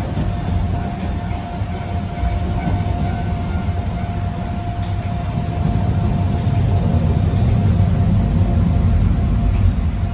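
Cabin noise of a Sangi Railway Hokusei Line narrow-gauge electric railcar (Mo 275) running on the line: a steady low rumble of wheels on rail with a thin steady whine and scattered clicks.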